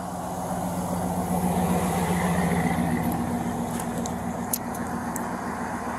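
A motor vehicle engine running with a steady low hum, swelling a little in the middle and easing off toward the end.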